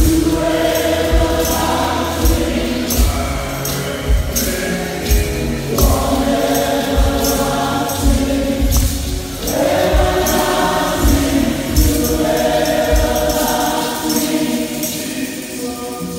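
Gospel praise music: a choir singing with a band over a steady drum beat.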